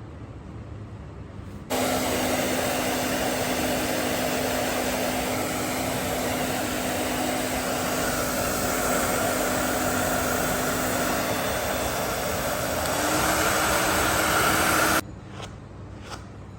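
Electric blow dryer switched on, blowing steadily for about thirteen seconds with a steady hum whose pitch steps slightly higher near the end, then switched off abruptly.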